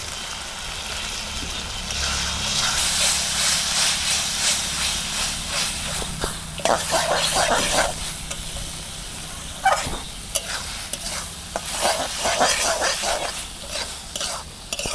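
Spice masala frying and sizzling in mustard oil in a kadai while a spatula stirs it, scraping the pan in irregular strokes from about two seconds in. The masala is being fried until the oil separates from it.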